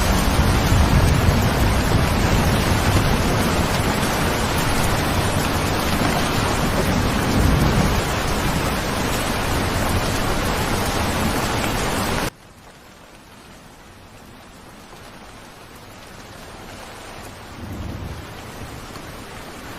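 Heavy rain with low rumbling thunder. About twelve seconds in it cuts off abruptly to much quieter, lighter rain, which slowly grows louder, with a brief low rumble near the end.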